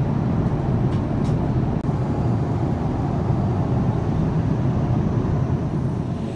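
Steady cabin noise of a Boeing 787-9 airliner in flight: the even, low rush of engines and airflow heard from inside the cabin, with a momentary dropout about two seconds in.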